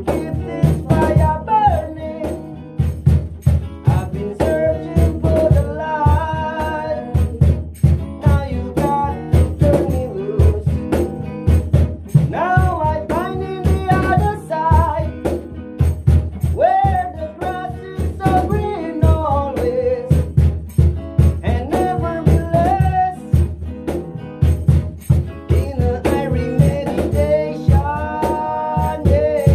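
A song played live on acoustic guitar with a man singing: a steady, rhythmic strummed accompaniment under a sung melody.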